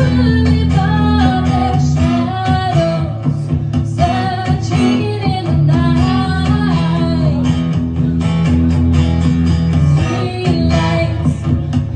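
Live duo: a woman singing a melody through a microphone over a man's strummed acoustic guitar.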